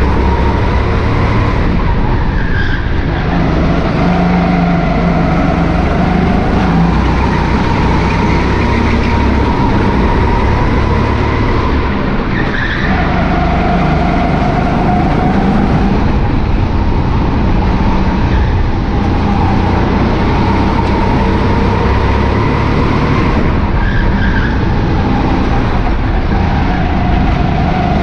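Rental go-kart driven hard on an indoor track, heard from on board: its motor note rises along the straights and dips for each corner about every ten seconds. Short tyre squeals come in the turns about two, twelve and twenty-four seconds in.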